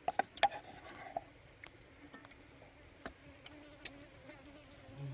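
An insect buzzing steadily near the microphone, a faint even hum, with a few sharp clicks in the first second.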